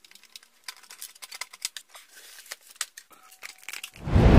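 Screwdriver turning out screws from an amplifier's sheet-metal chassis: a run of small, irregular metallic clicks and ticks. A loud thump comes near the end.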